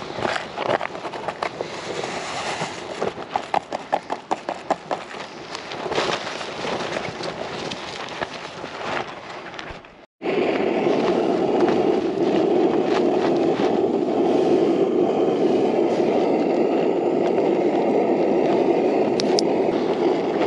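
Irregular rustling with sharp crackling clicks, then after a sudden break about halfway through, a backpacking gas stove burner running with a steady rushing hiss.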